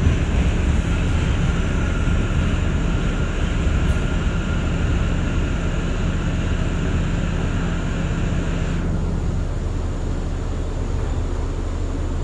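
NYC subway train running on elevated track, heard from inside the front car: a steady rumble and hum with a faint whine. The hiss and part of the hum drop away about three-quarters of the way through.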